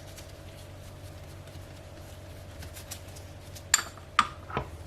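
Kitchen utensils and containers clinking three times near the end, short sharp knocks over a faint steady hum.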